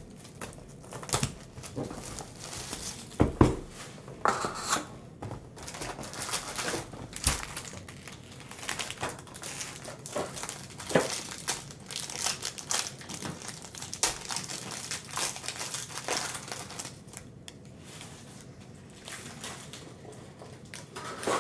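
Foil trading-card packs crinkling and tearing open as they are pulled from a cardboard hobby box, with cardboard rustling and a sharp knock about three seconds in. Stiff cards are handled between the bursts of crinkling.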